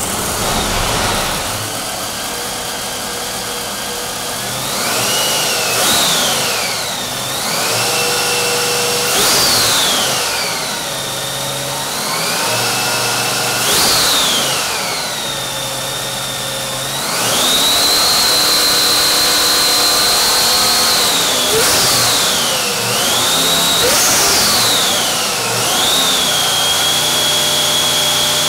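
Supercharged methanol-burning big-block Chevy V8 running on an engine dyno and being revved. Three times it rises and falls back to idle. A little past halfway it is held at higher revs for about four seconds. Then come three quicker blips, and near the end it settles at a steady higher speed.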